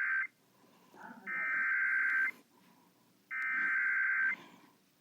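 Emergency Alert System SAME header bursts: harsh, buzzing two-tone digital data. The end of one burst is followed by two full bursts, each about a second long with about a second's pause between. This is the coded header that opens an EAS activation, here for a severe thunderstorm warning.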